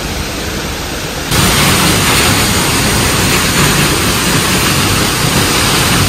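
Steady roar of falling water from the lower Peričnik waterfall, a plunging mountain waterfall; it gets louder about a second in.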